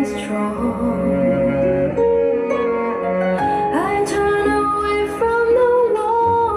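A pop song with a female singer over guitar and bass, played back through a homemade loudspeaker during a listening test.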